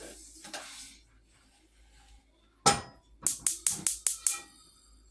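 A metal cooking pot is set down on the stove with a single loud clang that rings briefly. It is followed by a quick run of about six sharp clicks.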